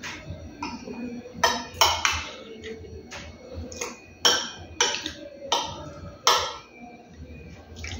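Metal spoon clinking and scraping against a metal plate as food is scooped up, with about seven sharp clinks spread over the few seconds.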